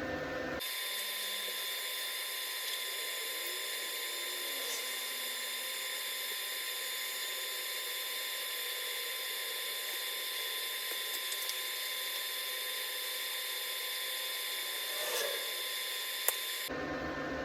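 A DC TIG arc from a Titanium Stick 225 inverter stick welder rigged for TIG, burning steadily during a root pass on a heavy-wall steel pipe coupon. It is an even hiss with a few steady high whining tones, and there is a single sharp click near the end.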